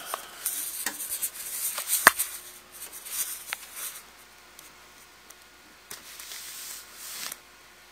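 Handling noise from the camera being moved around in the hand: rubbing and rustling with a few sharp clicks over the first half, then quieter, with a short patch of rubbing about six to seven seconds in.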